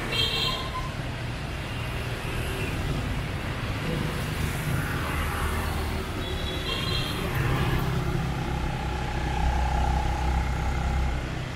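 Street traffic heard from a moving motorbike: the steady low hum of scooter and motorcycle engines running, getting louder in the last few seconds. Two short high-pitched tones stand out, one just after the start and one about six and a half seconds in.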